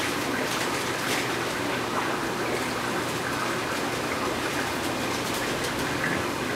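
A steady rushing hiss like running water, with a few light plastic clicks and taps from the filter's pipes and suction-cup clips being handled.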